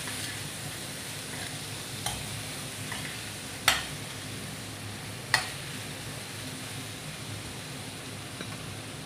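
Steel spoon stirring potatoes and pointed gourd frying in oil in a steel kadhai, over a steady sizzle. The spoon clinks sharply against the pan three times, about two, three and a half and five seconds in, the middle one the loudest.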